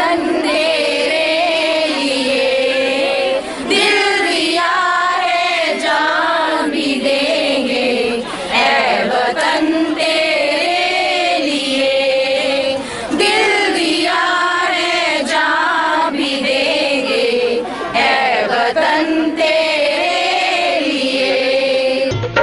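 A group of women singing a song together in unison, the phrases held on long notes with short breaks between them.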